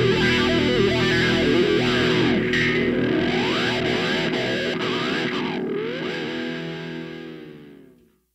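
Background rock music with distorted electric guitar, its notes sliding up and down in the middle, fading out near the end.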